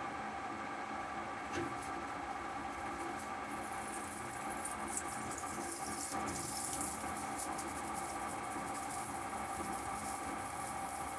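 ProtoTRAK SLX CNC lathe turning a metal hitch ball: a steady hum from the spindle and drives, with a dense high crackle and patter of chips coming off the tool and striking the guards, heaviest in the middle.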